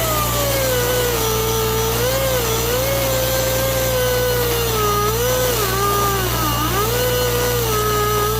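Pneumatic cut-off wheel cutting through a rusted bolt. Its whine drops in pitch as the disc bites into the metal, then wavers up and down as the load changes.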